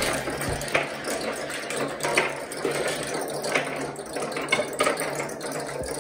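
Glass marbles rolling down a wooden peg board: a steady rolling rumble with scattered sharp clicks as they knock against the pegs and each other.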